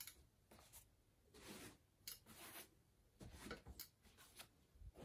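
Faint rustling of a blanket being lifted and draped over a cat, in a few short swishes with quiet gaps between them.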